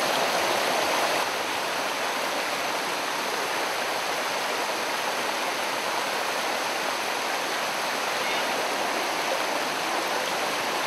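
Rocky stream rushing and splashing over boulders: a steady rush of water, a little louder for the first second or so.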